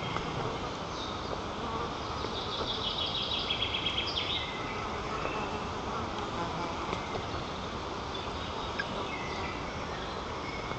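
Strong wind on the nest-camera microphone, a steady rushing noise. About two seconds in, a rapid high-pitched trill of short pulses rises above it for roughly two seconds.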